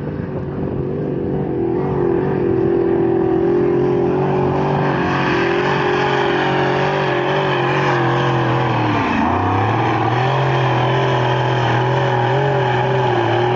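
Twin-turbo Detroit Diesel engine of a modified pulling tractor running hard under load as it drags the sled, growing louder over the first two seconds as it nears. Its pitch dips sharply about nine seconds in and recovers, then starts to rise near the end.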